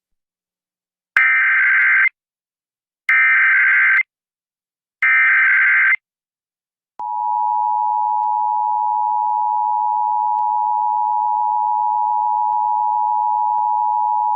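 Emergency Alert System SAME header: three bursts of warbling data tones, each about a second long. About a second after the last burst comes the steady two-tone EAS attention signal, which announces a tornado warning.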